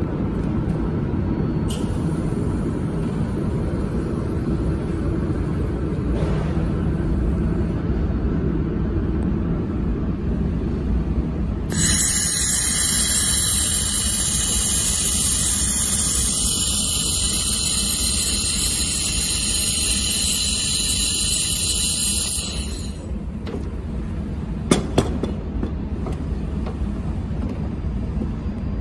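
A 1 kW handheld laser welder welding 2 mm aluminium: a loud, steady, high hiss that starts abruptly about twelve seconds in and cuts off suddenly about ten seconds later, over a steady low machine hum. Two sharp clicks follow a couple of seconds after the hiss stops.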